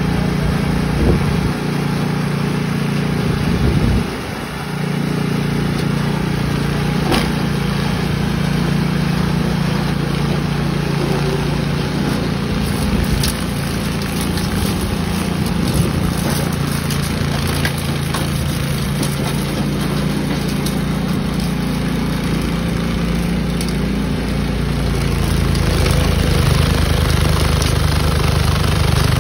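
Ariens track-drive two-stage snowblower engine running steadily as the auger and impeller throw snow. The engine dips briefly about four seconds in, and its note grows fuller and louder in the last few seconds as the machine works into deeper snow.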